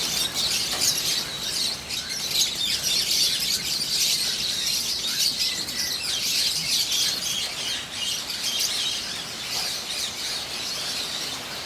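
A large flock of lovebirds chirping and chattering nonstop, a dense high-pitched twittering of many birds at once.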